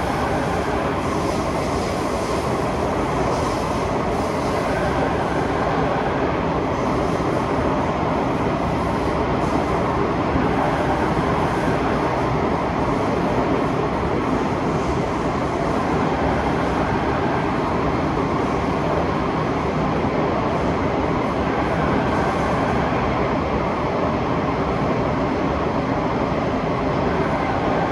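Steady running noise inside a Kawasaki Nippon Sharyo C751B metro train car in motion, with the rumble and hiss of wheels on the rails.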